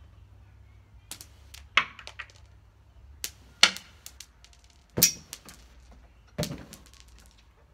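Thrown rocks landing and striking around a concrete patio: about six sharp clacks and knocks spread across several seconds, the loudest two about three and a half and five seconds in.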